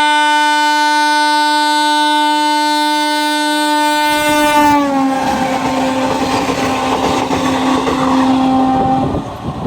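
Train horn sounding one long continuous blast as the train passes. Its pitch drops about five seconds in as the locomotive goes by, and the rumble and clatter of the passing train rise under it. The horn stops about nine seconds in, leaving the wheels clattering.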